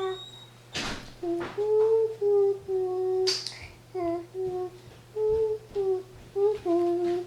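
A child humming a made-up tune in short, separate notes, some held steady and some sliding, with a few sharp clicks in between, the loudest about three seconds in.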